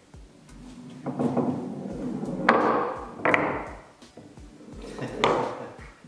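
A marble rolling down the plywood tracks inside a wooden game cabinet, rumbling along, with three sharp wooden knocks as it drops through the track sections and lands on the exit ramp.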